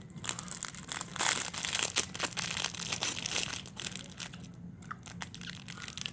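Cracker packaging crinkling and crackling as it is handled, in irregular bursts with a brief lull a little after four seconds in.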